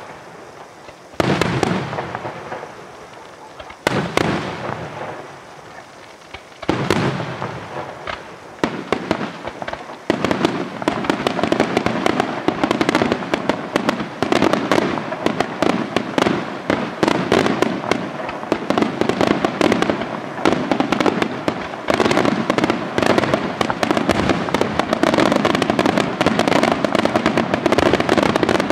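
Aerial fireworks shells bursting. A few single loud bangs come several seconds apart, then about ten seconds in they give way to a dense, continuous barrage of rapid bangs and crackle that grows thicker.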